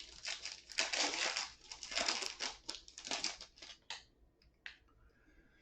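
Foil trading-card pack wrapper being torn open and crinkled by hand, a dense crackling for about four seconds, then a couple of light clicks.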